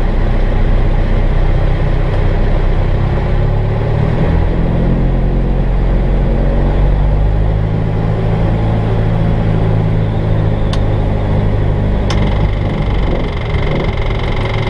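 Jabiru light aircraft's air-cooled engine and propeller running steadily at low power, heard from inside the cabin; the engine note swells a little about four seconds in. A steady high tone joins about twelve seconds in.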